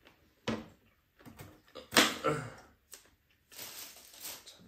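Table and food-handling noises: a knife peeling a Korean melon (chamoe), with a few short knocks and clatters, the loudest about two seconds in, and a longer scraping near the end.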